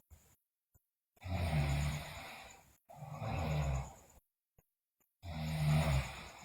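A sleeping girl snoring loudly: three snoring breaths, the first two back to back from about a second in, the third near the end.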